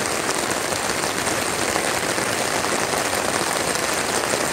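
Thunderstorm rain falling on a McKinley tent, heard from inside it: a dense, steady hiss.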